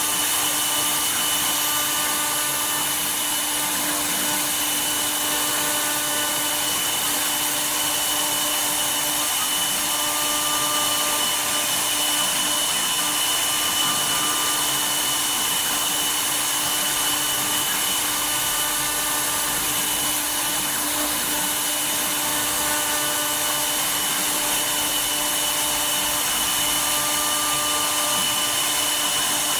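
CNC router spindle running steadily while cutting wood: a constant whine with a rushing hiss, and fainter tones coming and going now and then.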